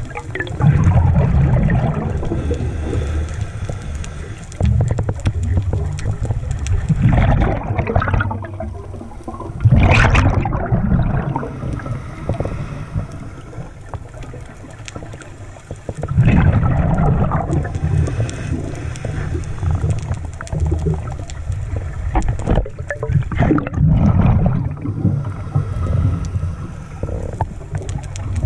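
Scuba regulator breathing heard underwater through a camera housing: exhaled air bubbles gurgling and rumbling up in surges every few seconds, with a sharp rising hiss at the loudest surge, about ten seconds in.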